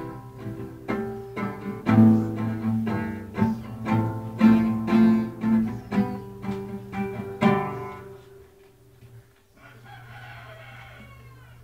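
Acoustic guitar strumming chords in a steady rhythm; the last chord rings out and fades about eight seconds in, leaving a low hum.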